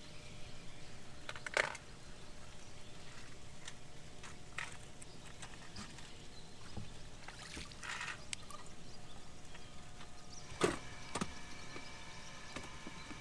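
Water trickling and splashing at a bass boat as a hooked fish is played and lifted aboard. There is a longer splash about eight seconds in and a few sharp knocks on the boat near the end.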